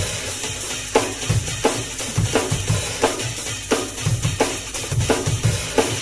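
Acoustic drum kit playing a fast jungle/drum-and-bass groove: sharp snare hits about every 0.7 seconds over a busy kick drum, with a steady wash of cymbals above.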